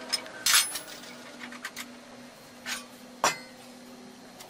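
A few sharp metallic clinks and knocks of tools against a large wood lathe's steel rest, the loudest about half a second in, over a faint steady hum of the lathe running.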